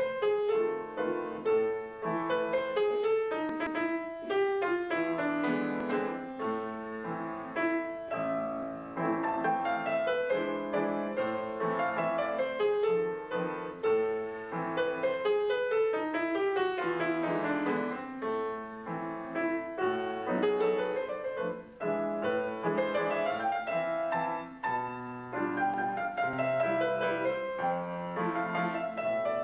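Piano playing a fast-moving piece full of quick runs of notes; one long run falls in pitch a little past halfway.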